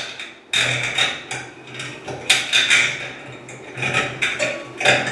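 Light metal clinks and scrapes, coming in uneven bursts, as a chrome shower-valve trim plate and its long mounting screws are worked against the valve to find the screw holes.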